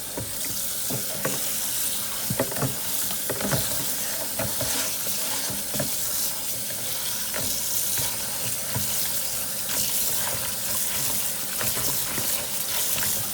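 Tap water running into a strainer full of chopped cabbage in the sink while the leaves are rinsed and tossed by hand, with scattered small knocks and rustles from the handling.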